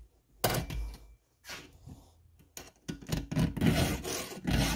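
Round file stroking across the cutters of a chainsaw chain clamped in a vise, sharpening teeth that took a beating. A few spaced rasping strokes at first, then quicker, closer strokes from about three seconds in.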